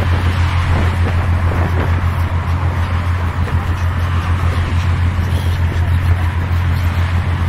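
A steady low mechanical drone with a constant rushing noise over it.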